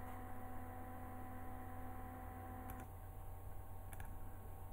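Low, steady electrical hum with a few faint steady tones over it, one of which stops about three seconds in, and a couple of faint clicks.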